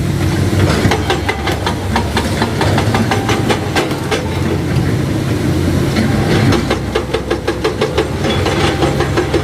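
Excavator-mounted hydraulic rock breaker hammering andesite rock in a fast, even run of blows, over the steady running of the excavator's diesel engine.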